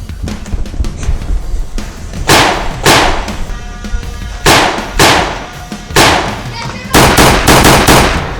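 A series of about nine loud, sharp, shot-like bangs from a Nerf blaster fight, each with a short fading tail, the last four in quick succession near the end, over background music.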